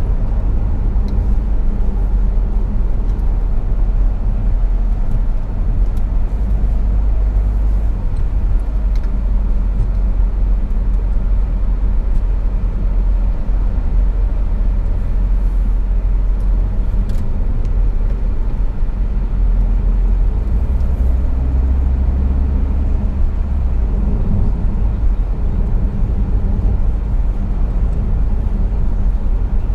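Steady low rumble of engine and tyre noise heard inside a moving car's cabin at road speed. It grows a little louder for a few seconds past the middle.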